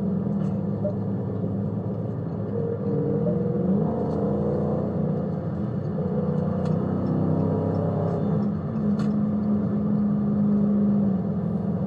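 Dodge Scat Pack's 6.4-litre HEMI V8 engine running under varying throttle, its note rising a few seconds in and falling again later.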